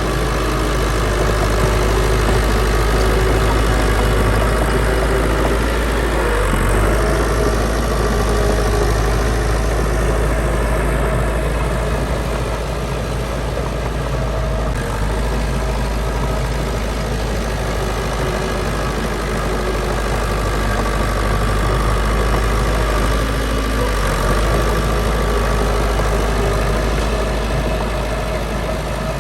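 Diesel engine of heavy earthmoving machinery running steadily, with a constant low rumble and no changes in pace.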